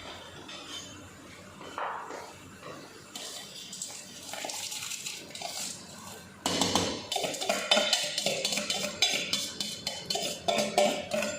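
Rice being added to a pot of boiling water, with a utensil clinking and scraping against the pot; the clatter starts suddenly about six and a half seconds in and is the loudest part.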